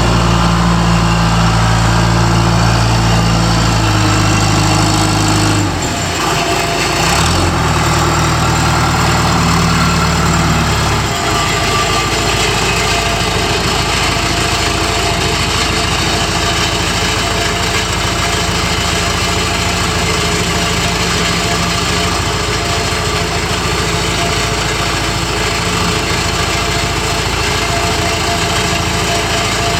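Four-cylinder diesel engine of a 2007 John Deere 310G backhoe loader running. A steady pitched hum changes with two sharp knocks around six to seven seconds in and stops about eleven seconds in, leaving a steady idle.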